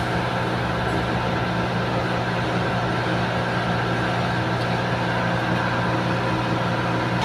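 Steady low machine hum made of several fixed tones, with a faint hiss, holding an even level throughout.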